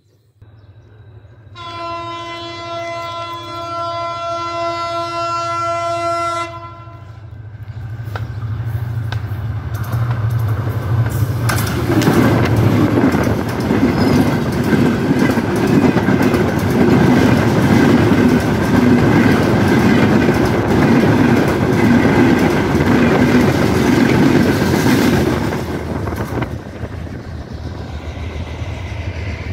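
A train horn sounds one steady blast for about five seconds. Then a passenger train runs close by, its wheels clattering over the rail as it passes; the noise builds, stays loud for about fifteen seconds and eases off near the end.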